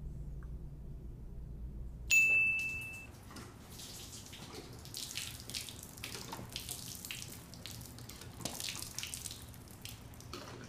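A short ding about two seconds in, then liquid pouring and splashing from a red plastic fuel can onto a concrete floor, coming in uneven surges.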